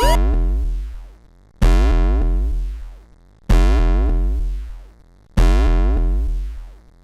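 Four loud synthesizer chord hits just under two seconds apart, each with a deep bass note beneath and fading out over about a second and a half, as part of an emergency-alert-style alarm sequence.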